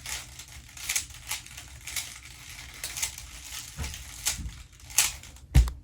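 Plastic Rubik's cube turning, an irregular run of clicks and rustles as its layers are twisted, with a heavier thump near the end.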